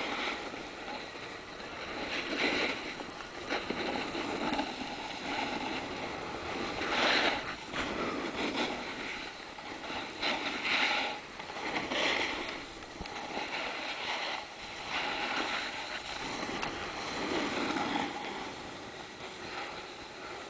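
Rushing, scraping noise of sliding over packed snow, swelling and fading several times.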